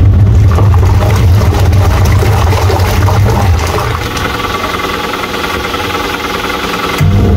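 Twin-tub washing machine's wash motor running with a loud, steady low hum. It cuts out about three and a half seconds in and starts again near the end, the stop-and-restart of the wash cycle's agitation.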